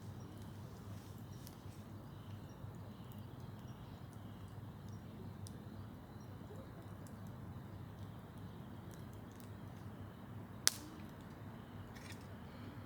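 Steady, faint low background noise with a few faint ticks, and one sharp click nearly eleven seconds in.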